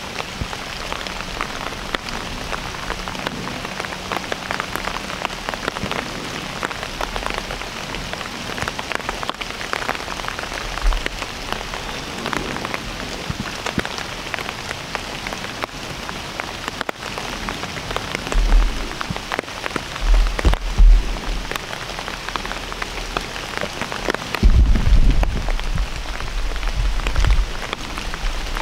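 Steady rain falling: a dense, even patter of drops. Low rumbling thumps come in twice, about two-thirds of the way in and again near the end.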